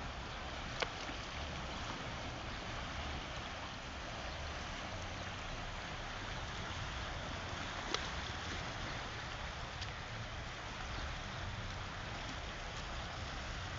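Sea noise: a steady wash of water with a low rumble underneath, and two sharp clicks, one about a second in and one about eight seconds in.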